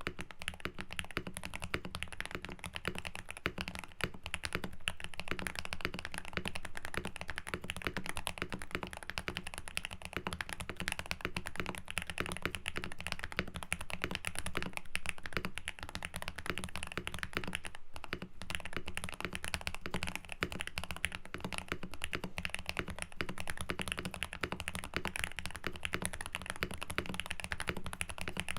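Fast, continuous typing on a mechanical keyboard demonstrating the 'thocky' sound, deep and soft. There is a brief pause about two-thirds of the way through.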